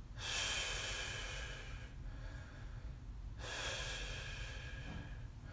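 A man breathing out forcefully while pulling a light resistance band apart: two long exhales, each lasting about one and a half to two seconds, spaced about three seconds apart.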